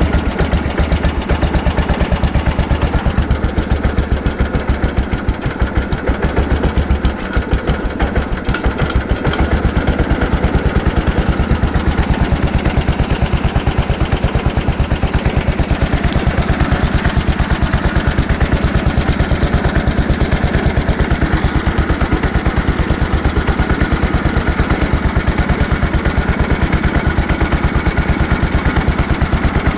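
A Simplicity 2012 garden tractor's 16 hp Briggs & Stratton engine running just after a cold start on choke. It is somewhat uneven for the first several seconds, then settles into a steady, even beat.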